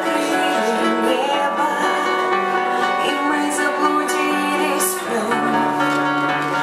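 A band playing a song live, with sustained chords and a melody line running throughout.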